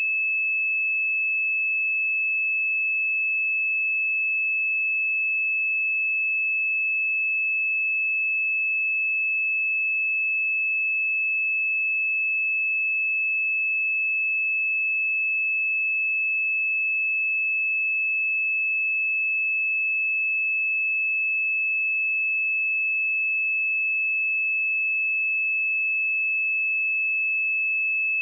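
A pure 2607 Hz sine-wave test tone, held at one steady pitch and level.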